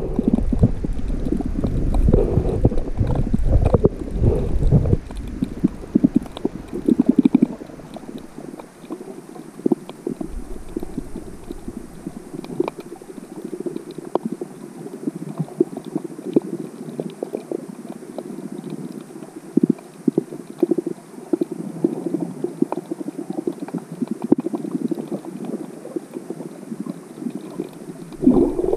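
Muffled underwater sound picked up by a submerged camera: water gurgling and rumbling, heaviest in the first few seconds, with scattered faint clicks throughout.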